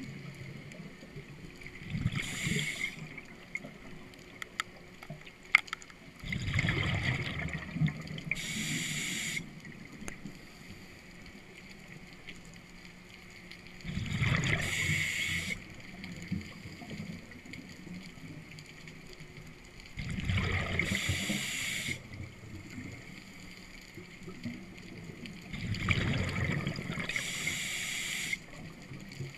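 A scuba diver breathing through a regulator in a slow cycle, a breath about every six seconds. Each breath brings a short hiss from the regulator and a longer bubbling rumble of exhaled air.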